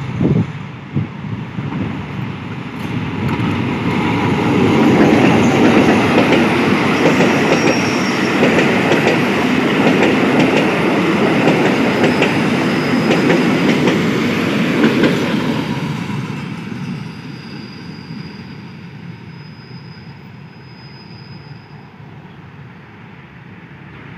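A passenger train hauled by an Alsthom diesel-electric locomotive passes close by over the points of a passing loop, its locomotive and carriage wheels clattering over the switch and rail joints. The sound builds, stays loud for about twelve seconds, then fades as the train draws away.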